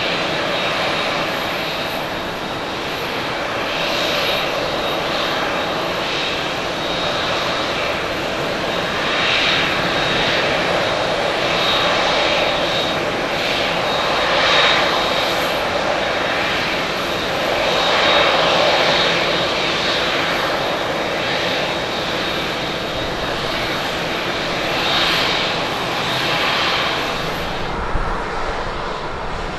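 Jet engines of a Boeing 767-300(ER) landing and rolling out along the runway: a steady rush of engine noise with a thin high whine, swelling and easing every few seconds. Near the end it cuts to the engines of another Boeing 767-300(ER) taxiing.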